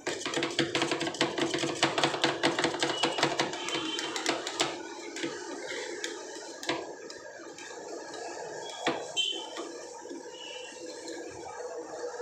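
Metal spatulas chopping and scraping ice cream on a stainless-steel cold plate for rolled ice cream. A fast clatter of metal strikes for the first few seconds gives way to slower scraping with a few single knocks.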